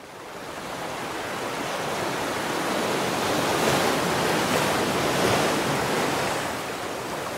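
Rushing, surf-like noise of waves washing, fading in from silence and swelling to its loudest around the middle before easing slightly.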